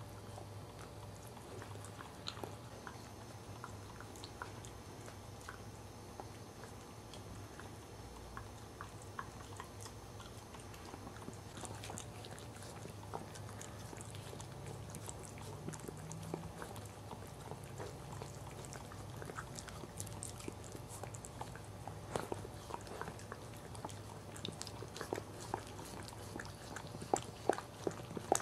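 Cairn Terrier mother licking and chewing at a newborn puppy's birth sac during whelping: scattered wet clicks and smacks that come more often near the end, over a faint low hum.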